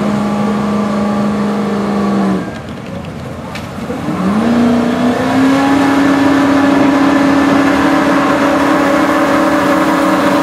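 Vintage fire truck engine running hard at steady revs, then dropping off about two seconds in. About four seconds in the engine revs up with a rising note and holds a higher steady drone as it drives the pump, with the hiss of a hose stream spraying water.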